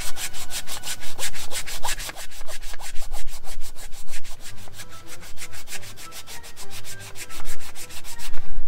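Hand sanding of a filler-primed 3D-printed part with 180-grit sandpaper: quick, even back-and-forth strokes, about six a second, working down the visible layer lines.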